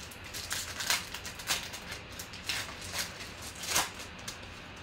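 Foil trading-card pack wrapper crinkling and tearing as it is ripped open and the cards pulled out: an irregular run of sharp crackles.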